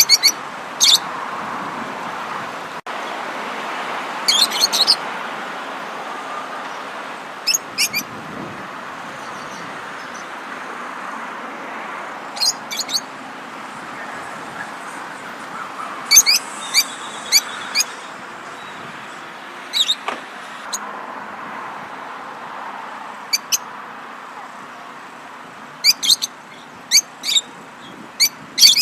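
Small songbirds chirping in short, high, rapid clusters every few seconds over a steady rushing background noise.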